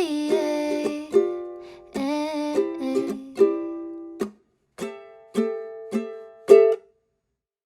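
Ukulele strumming the song's closing chords; then four single strums about half a second apart, each left to ring, and the music stops about seven seconds in.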